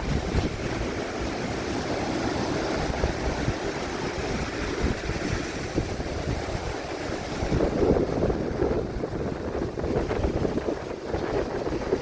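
Ocean waves breaking on a beach under strong wind, with gusts buffeting the microphone in a low rumble.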